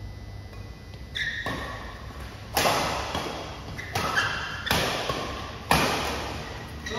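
Badminton rackets striking a shuttlecock in a doubles rally: about five sharp hits roughly a second apart, echoing in a large hall, with short shoe squeaks on the court floor between them.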